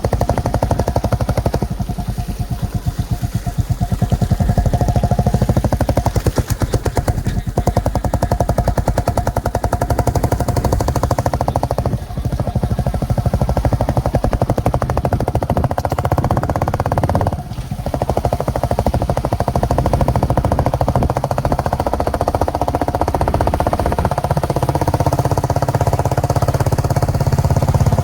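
Royal Enfield Bullet single-cylinder motorcycle engine running with a rapid, even exhaust thump. The beat briefly drops out twice, about halfway through and about two-thirds of the way in.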